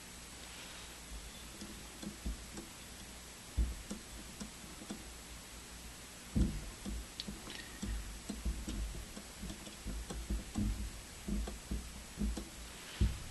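Irregular light knocks and clicks as an opened aircraft turn-and-slip indicator, its metal frame and gyro mechanism, is handled and moved; the loudest knock comes about six and a half seconds in.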